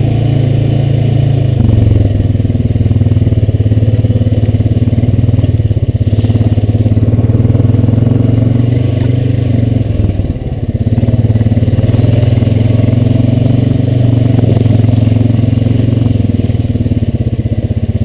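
Honda Rancher 420 ATV's single-cylinder four-stroke engine running at low trail speed under a rider, its note steady with a brief drop in level about ten seconds in as the throttle eases off, then picking back up.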